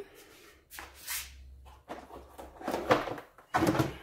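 Items being handled and shifted in a plastic under-floor cargo storage compartment: a few separate rustling and knocking sounds, the last one starting sharply.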